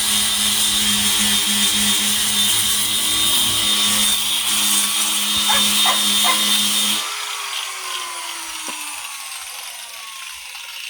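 Electric grinder sanding a dried cowhide, running steadily, then switched off about seven seconds in, its whine falling as the motor spins down.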